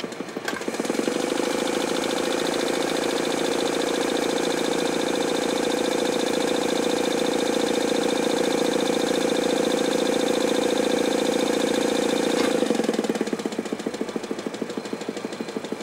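Vintage Atlas sewing machine running under its foot pedal: the motor comes up to speed about a second in, runs steadily, then drops back to a lower, pulsing run about thirteen seconds in. It is run through a foot control that the repairer then finds faulty.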